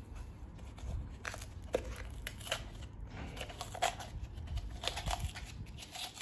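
Pleated paper element of a VW diesel fuel filter being torn and peeled apart by hand: faint, irregular crinkling and tearing crackles.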